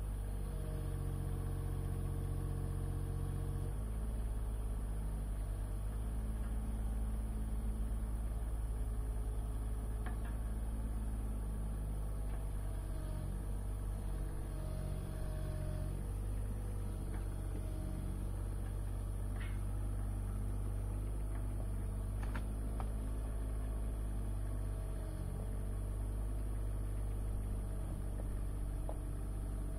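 Mini excavator's diesel engine running steadily, its note shifting a little about four seconds in and again around sixteen seconds.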